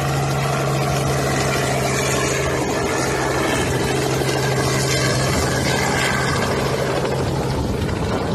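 Small two-bladed light helicopter running at takeoff power at close range, its engine and rotor a loud, steady noise with a strong low hum underneath.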